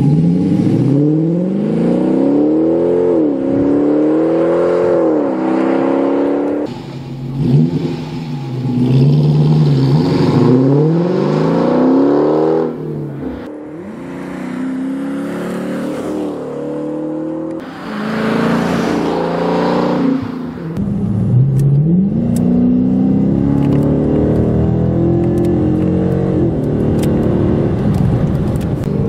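Dodge Challenger 5.7L HEMI V8 through a CORSA 2.5" cat-back exhaust at its Sport sound level, accelerating hard several times, the exhaust note rising and dropping back at each upshift. In the second half it is heard from inside the cabin, running at a steadier cruise.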